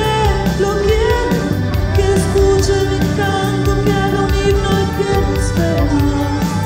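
A woman singing a Spanish-language song over a band of guitar, keyboards and bass, the sung line rising and falling over steady bass notes.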